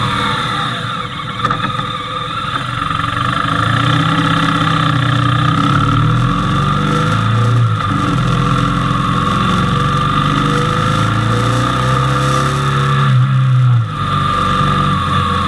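Motorcycle engine running under way, heard from an action camera mounted on the bike, its note rising and falling with the throttle and dropping briefly near the end. Steady wind and road rush run under it.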